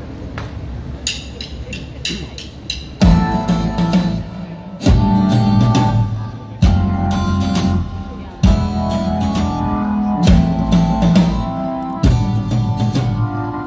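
Live rock band playing a song intro. A few light percussive ticks open it, and about three seconds in the full band enters with drums, bass and guitar, hitting heavy accented chords roughly every two seconds.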